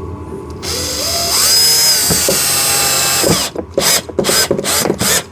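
Cordless drill/driver driving a screw into a ride-on car's fender tab: it spins up with a rising whine, runs steadily for about two seconds and stops, then gives several short bursts as the screw is snugged down.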